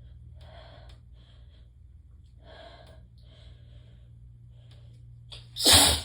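Sneezing fit from Chhinkni sneezing powder: several short, breathy hitching in-breaths, then one loud sneeze near the end.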